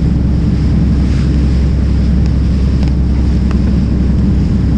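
Wind buffeting the microphone, a steady low rumble, with a few faint clicks from a plastic lure box being handled.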